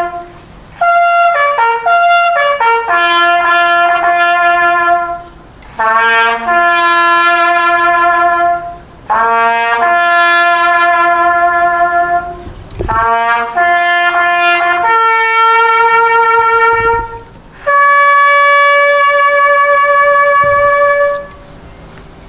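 A lone brass instrument sounding a bugle call: a slow melody of separate notes held at length, built only from the bugle's few natural notes, ending on a long held high note that stops near the end.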